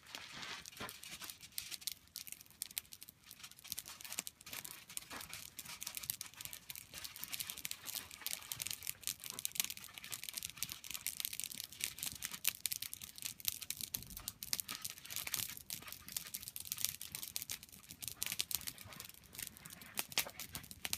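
Wood campfire crackling, with a dense run of irregular small snaps and pops.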